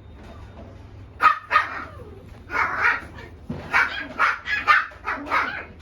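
Shiba Inu puppy barking: a series of short, sharp barks in quick clusters, starting about a second in.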